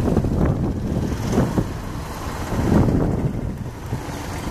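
Wind buffeting the microphone in gusts over a low, distant rumble from a Boeing 777-300ER and its tug during pushback.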